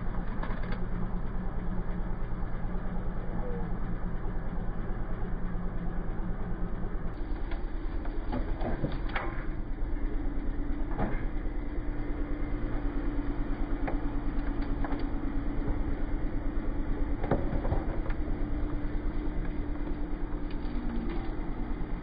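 Kubota L3901 tractor's three-cylinder diesel running steadily as its root rake grapple tears a barberry stump out of the ground. The engine note shifts about seven seconds in, and a few sharp cracks come through as the roots tear free.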